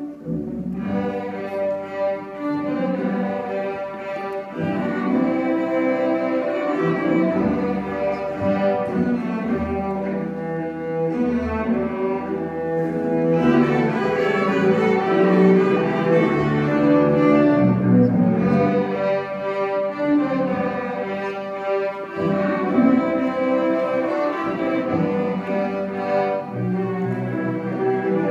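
String orchestra of violins, cellos and double bass playing live.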